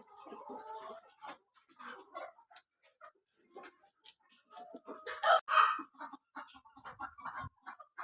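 Kadaknath chickens clucking with scattered short calls, and a louder call a little over five seconds in.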